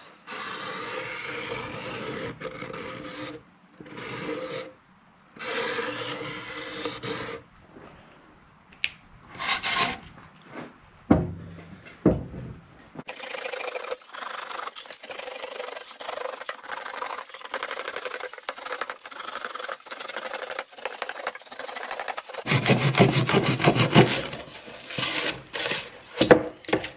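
Foam insulation board being cut through around a traced circle: scraping, scratchy strokes in short stretches, then one long unbroken stretch of cutting from about halfway through until near the end.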